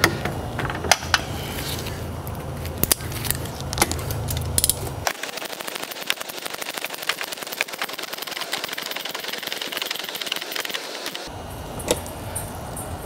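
Ratchet wrench clicking rapidly as a hose clamp on a diesel truck's intercooler pipe is tightened, with sharp knocks of tools on metal in the first few seconds. A low hum drops out about five seconds in and comes back near the end.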